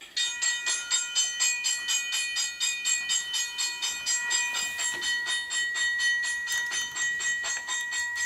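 Lego electric train running along plastic track: a steady motor whine with a rhythmic clicking about five times a second, starting suddenly.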